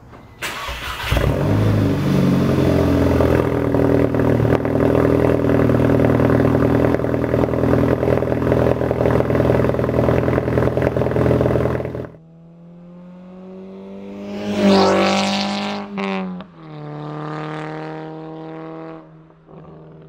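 Volkswagen GTI's turbocharged 2.0-litre four-cylinder, fitted with a 3-inch downpipe and a 2.5-inch resonated catback, starts up and then idles steadily and loudly. About twelve seconds in it is heard accelerating hard up through the revs with a higher-pitched exhaust note, cuts off briefly at a gear change, then pulls again and fades.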